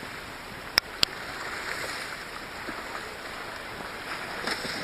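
Sea water splashing and churning steadily against the side of a small boat. Two sharp clicks sound close together about a second in.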